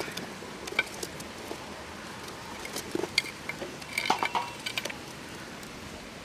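Aluminium pan of crab and water heating over a wood fire: scattered small crackles and light metallic clinks, with a busier cluster about four seconds in.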